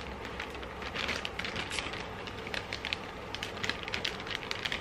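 Plastic zip-top bag crinkling as fingers press its zipper seal shut, a steady run of small irregular crackles and clicks.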